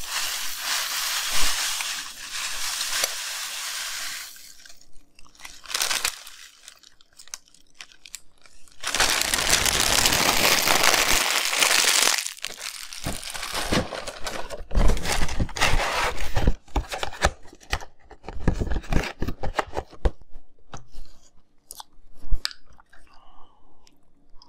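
Fruity Pebbles rice cereal poured from a plastic bag into a glass bowl: a dense rush of pattering flakes for the first few seconds and again for about three seconds near the middle. Between and after, the plastic bag crinkles with scattered small taps and rustles.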